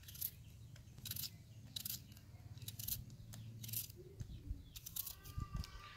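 Small knife slicing through a raw red onion held in the hand: a series of short, crisp cuts at irregular intervals, about one or two a second. Faint bird chirps near the end.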